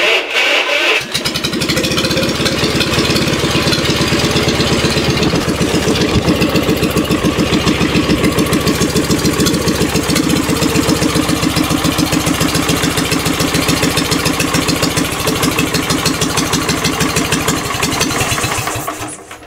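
Wisconsin THD air-cooled two-cylinder engine starting up and running with an even, regular firing beat, its two cylinders firing 360 degrees apart. It runs steadily, then stops and dies away near the end.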